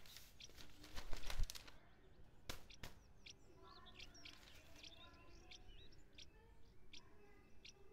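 Newspaper pages rustling and crackling as they are turned, mostly about a second in, with a couple of sharper paper snaps a little later. Small birds chirp faintly in the background.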